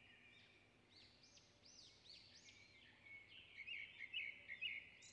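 Near silence with a bird's faint chirping: a run of about five arched notes, then a quicker series of short chirps near the end.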